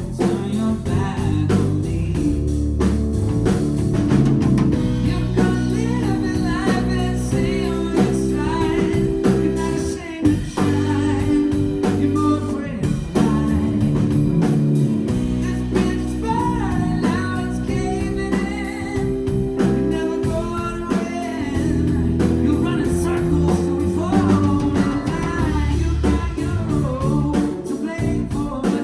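Live band playing a song: a singer's lead vocals over guitar with a steady beat.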